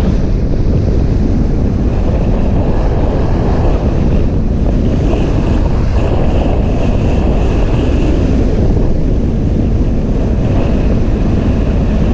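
Wind rumbling loudly and steadily on the microphone of a camera carried by a skier moving downhill. The hiss of skis sliding over packed, groomed snow comes up about halfway through and again near the end.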